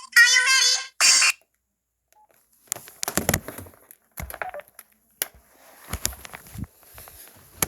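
An LG enV3 cell phone's speaker plays the last second of an electronic ringtone, which stops abruptly. A short hiss follows, then after a pause a string of irregular clicks and knocks from the phone being handled.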